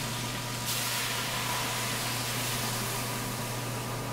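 Hot wok of stir-fried vegetables sizzling over a gas flame; about a second in, pork broth goes into the wok and the hiss turns louder and stays up. A steady low hum runs underneath.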